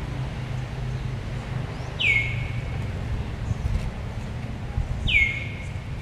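A bird calls twice, about three seconds apart. Each call is a sharp note that falls in pitch and then holds briefly, over a steady low background rumble.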